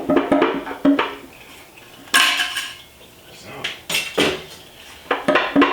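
Metal tools and engine parts clinking and clattering, with several sharp knocks as parts are set down and handled.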